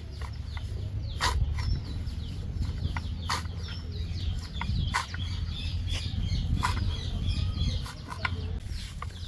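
Pet parrot flapping and scrabbling as it clings on, heard as irregular soft flaps and clicks over a low rumble, with faint bird chirps in the background.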